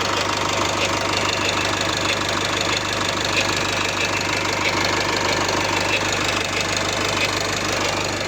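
Nissan M9R 2.0 dCi diesel engine idling cold, steady, with a fast even ticking clatter. The owner calls it an extraneous noise that comes on a cold start and goes away once the engine warms up.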